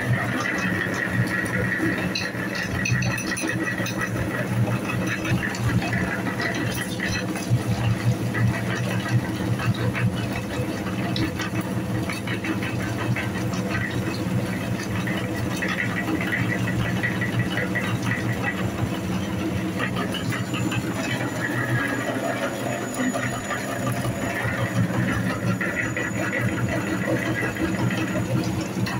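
Meat grinder running steadily, a low mechanical hum with a continuous grinding crackle and rattle as it minces squishy toy balls.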